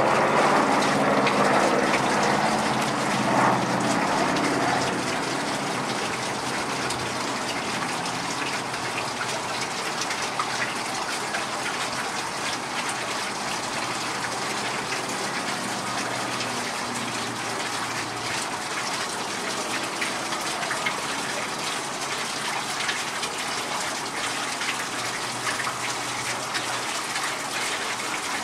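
Turboprop transport plane flying past, its low propeller drone loudest in the first few seconds and then fading under a steady rushing noise.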